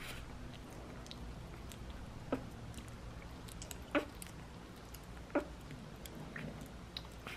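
A newborn puppy making a few short, soft mouth clicks and swallowing sounds, four in all, with a feeding tube in its mouth as milk is pushed down it from a syringe. Under them runs a low steady room hum.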